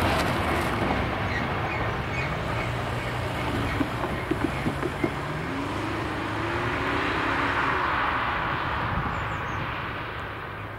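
A car passes close over the level crossing and drives away, its engine note rising as it pulls off, then fading. Under it a freight train rumbles in the distance, with a few sharp clicks about four to five seconds in.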